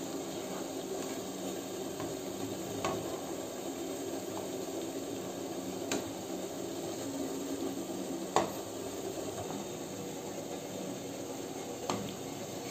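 Gulab jamun balls deep-frying in hot oil, a steady sizzle, with four sharp clicks of a metal slotted spoon against the pan, the loudest a little past the middle.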